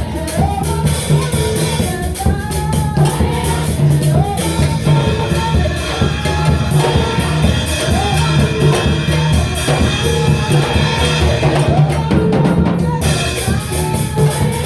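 Gospel worship song: a woman singing the melody over a band with a drum kit and a steady bass line.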